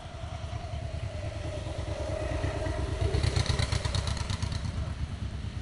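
A motor vehicle engine running, rumbling and growing louder over the first few seconds, with a rapid high ticking about halfway through.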